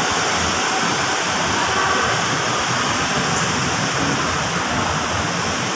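Steady, even rushing noise with no distinct events, the ambient roar of a covered vehicle terminal.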